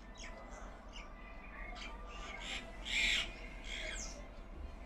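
Birds calling: a string of short calls, with one loud, harsh squawk about three seconds in.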